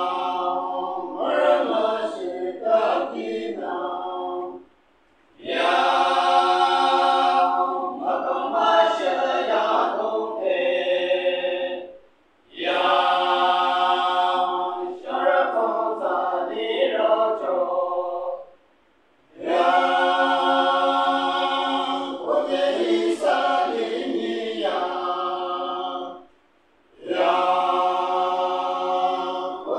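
Men's choir singing a cappella, in phrases of about six seconds, each broken off by a short pause for breath.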